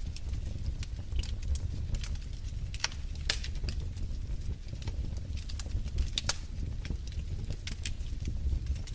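Wood fire burning in a fireplace: a steady low rumble of flames with frequent sharp crackles and pops scattered irregularly throughout.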